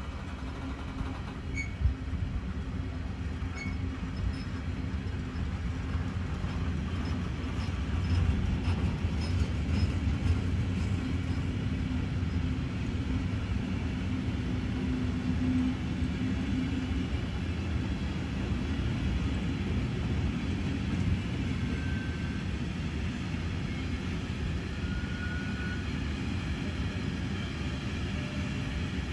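A long freight train of tank wagons rolling past: a steady rumble of wheels on rail, with a few sharp clicks in the first few seconds.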